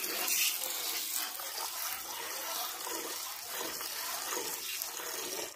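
Hand-milking into a metal pail: streams of milk squirting from a cow's teats into the bucket and splashing into the froth already in it, a steady hiss that stops abruptly at the end.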